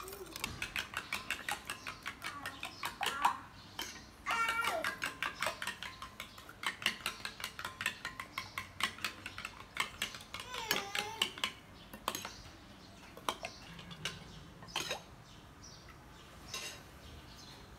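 Metal spoon clinking rapidly against a ceramic bowl as seasoned eggs are beaten, for about twelve seconds, then only occasional taps. A few brief pitched calls sound about four and eleven seconds in.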